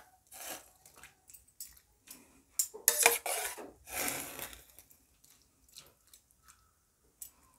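Metal spoon scraping and clinking against a steel saucepan as boiled spinach is scooped out into a bowl of cold water. The clatter is irregular, loudest about three to four seconds in, then thins to a few light ticks.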